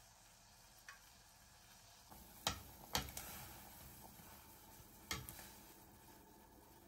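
Cucumber slices slid off a plate into a stainless saucepan of simmering water: a few sharp clicks and knocks against the pot, the loudest two about halfway through and another near the end, over faint bubbling water.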